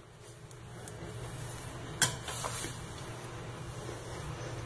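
Damp Norwex Envirocloth microfiber cloth wiping a porcelain sink basin: a soft, steady rubbing, with one sharp knock about two seconds in.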